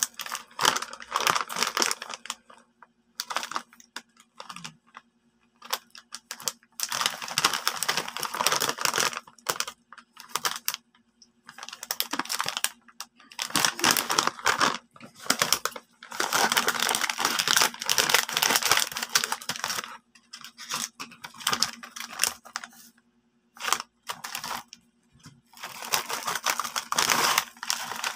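Crinkly plastic potato-chip bag being handled, in repeated bursts of crinkling and rustling with short pauses between them. Near the end the opened bag is tipped and the ripple chips slide out into a ceramic bowl.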